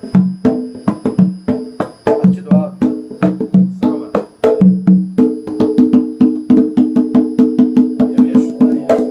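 Jongo drumming: hand-struck drums playing a steady rhythm of low and higher-pitched strokes, each with a short ring. About halfway through, the strokes come faster and closer together.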